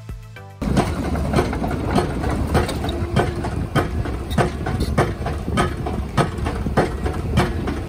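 Piling rig driving concrete piles: sharp hammer blows about every 0.6 s over a steady diesel engine rumble.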